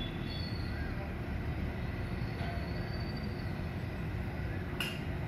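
Steady low outdoor rumble of neighbourhood machinery and traffic noise, with a faint constant hum. There are a few faint high chirps, and a short sharp click about five seconds in.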